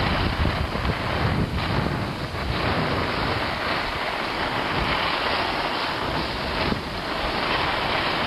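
Steady rushing wind noise buffeting the microphone, with small rises and dips.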